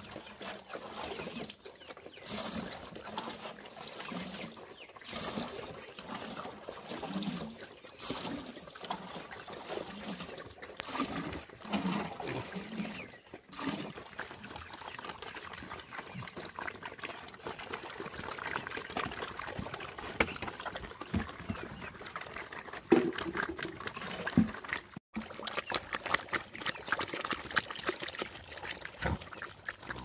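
A group of pigs slurping and chomping watery slop from a wooden trough: wet, irregular smacking and sucking sounds with occasional short low grunts, and one louder knock about three-quarters of the way through.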